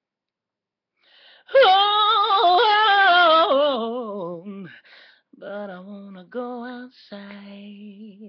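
Unaccompanied singing voice. After about a second of quiet comes a loud, ornamented run of sliding notes that drifts downward and fades over about three seconds. Then come softer, lower held notes in short phrases.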